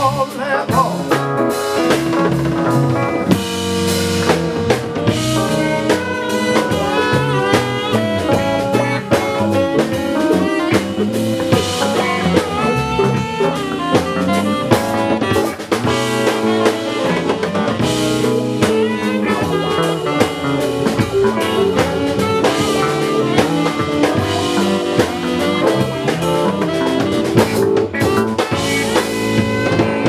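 A band playing an instrumental passage, with a drum kit keeping the beat under a moving melody line.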